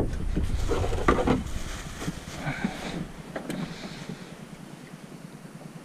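A sharp knock, then a low rumble with scattered knocks and rattles of fishing gear being handled in a small boat. The rumble dies away after about two seconds, leaving only faint clicks.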